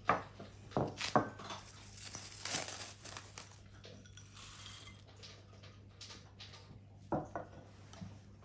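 Kitchen utensils and dishes clinking and knocking: a few sharp knocks near the start and one near the end, with a softer, hissy stretch in the middle.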